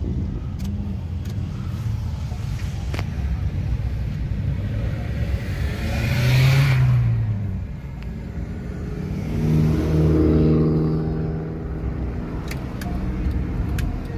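Car engines rumbling in slow traffic, with a loud car going by about six seconds in and another engine revving up around ten seconds.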